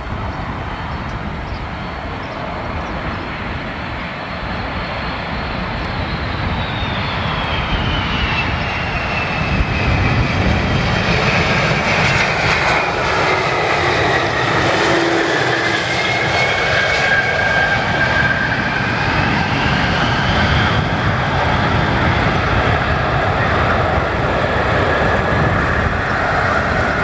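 Boeing KC-46 tanker's two turbofan engines during a touch-and-go: a steady jet rumble with a thin whine that drops in pitch as the jet passes, growing louder from about ten seconds in. Near the end the whine rises again as the engines spool up for the climb-out.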